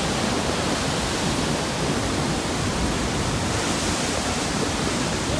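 A large waterfall and its churning whitewater rushing in a steady, unbroken noise.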